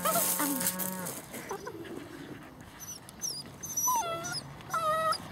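Seven-week-old Dutch shepherd puppies whining and whimpering in a few short high-pitched cries as they bite and tug at a bite sleeve. The cries come one after another, with one that falls in pitch about four seconds in and another near the end.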